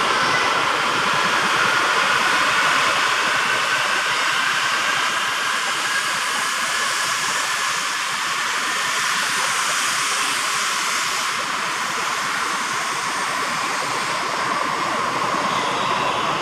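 East i (E926) Shinkansen track-inspection train running past the platform: a steady rushing noise, with a faint whine that falls in pitch over the first few seconds.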